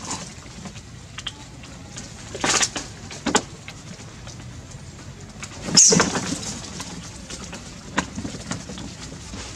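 Short, high-pitched squeals and cries from young long-tailed macaques as a large adult pries food from them. There are a few separate outbursts, the loudest about six seconds in, with a sharp knock near the end.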